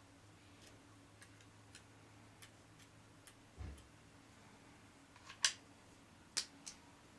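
Light plastic clicks and taps from handling a power strip's opened socket housing and a voltage tester pen: a string of faint ticks, a soft low thump about halfway, then a few sharper clicks near the end.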